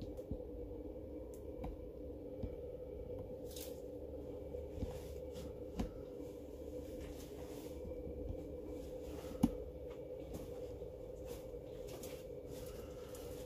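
Scattered soft clicks and rustles of someone moving about with a handheld camera, over a steady low hum; one sharper click about nine and a half seconds in.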